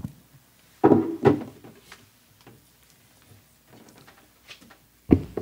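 Knocks and thumps close to the microphone: two about a second in and two more near the end.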